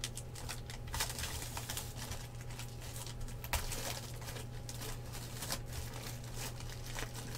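Trading-card packaging being handled: crinkling wrapper and scattered small clicks and taps, over a low steady hum.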